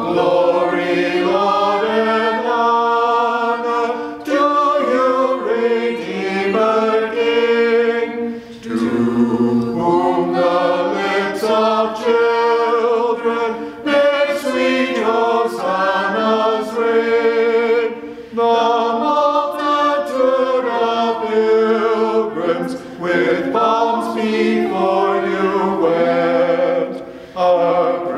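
A small group of men and women singing a hymn in parts, unaccompanied, in phrases with short breaks between them.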